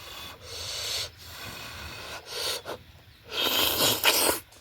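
Close-miked eating sounds: a person chewing a mouthful of smoked pork and breathing in short bursts through the nose, with a longer, louder breath lasting about a second near the end.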